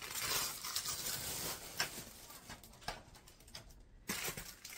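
Clear plastic packaging crinkling and rustling as it is handled, for about the first two seconds, then a few light taps and rustles, quieter toward the end.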